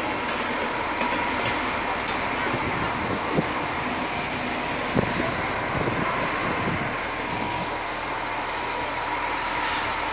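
SBB fire-fighting and rescue train rolling past, its wagons rumbling steadily on the rails with a few sharp clicks. A thin steady whine sounds over it for the first two seconds or so.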